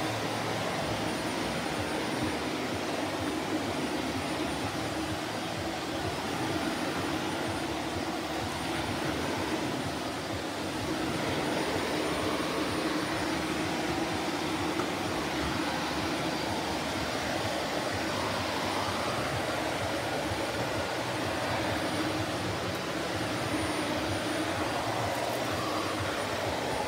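Shark Navigator Lift-Away Professional upright vacuum cleaner running steadily as it is pushed over the floor, a constant rush of motor and airflow noise with a faint low hum.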